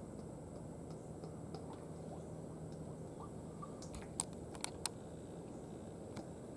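Scattered light clicks and taps of small objects being handled, with three sharper clicks about four to five seconds in, over a low steady hiss.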